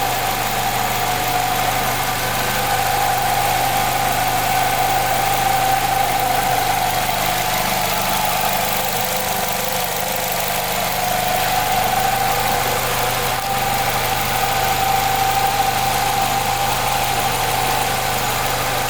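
2016 Nissan Rogue's 2.5-litre four-cylinder engine idling with a steady whine over a low hum. The owner suspects the whine is a dry bearing; the dealer calls it normal.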